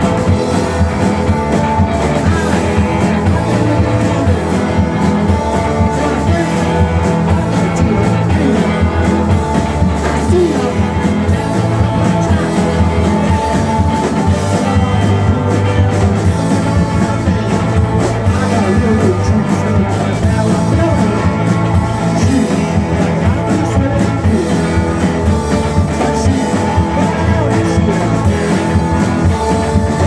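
Rock band playing live: two electric guitars over a drum kit, with a lead vocal sung into the microphone. The band plays steadily and loudly throughout.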